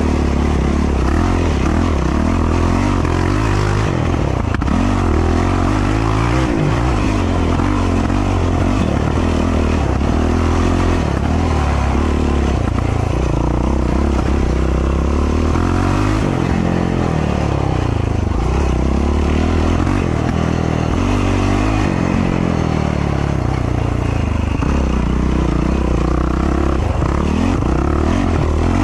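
A racing ATV's engine runs continuously, its pitch rising and falling again and again as the throttle is worked on and off along a tight, rough trail.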